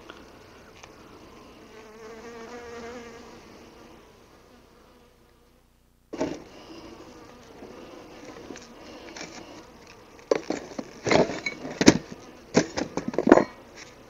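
Honeybees buzzing around an open hive. The sound drops out briefly near the middle, and in the last few seconds a run of loud, sharp knocks and scrapes stands out over the buzzing.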